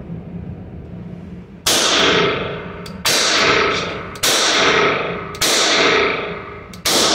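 Webley Model 1883 Royal Irish Constabulary revolver in .450 Adams firing five shots, the first nearly two seconds in, then about one every 1.2 seconds. Each shot rings on with a long echo off the walls of the indoor range.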